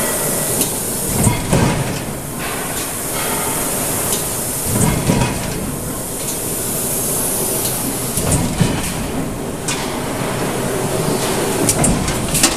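A Komatsu 1600-ton hot forging press at work. A steady, loud hiss of air or die spray runs at the hot dies. A heavy low thud with metal knocks comes about every three to four seconds as the press cycles.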